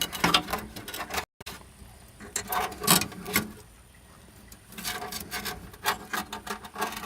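Clicks, taps and scrapes of computer parts and hardware being handled and fitted into a desktop case, coming in clusters with a quieter stretch in the middle and a brief dropout about a second in.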